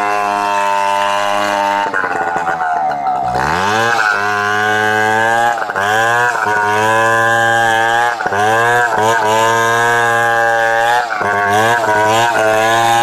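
Stihl 070 chainsaw's big two-stroke engine running hard while ripping lengthwise through a log. About two seconds in, the engine speed falls away, then revs back up. After that the pitch keeps dipping and recovering, about once a second, as the chain loads in the cut.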